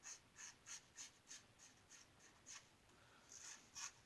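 Faint, crisp scraping strokes of a single-edge safety razor (a Star lather catcher with a GEM blade) cutting lathered whiskers, about two to three short strokes a second, with a brief pause just past the middle.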